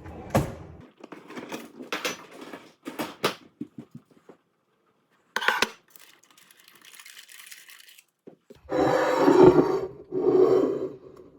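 Dishes and cutlery clattering: a plate and fork handled in a series of short clinks and knocks, followed by a louder, longer sound over the last few seconds.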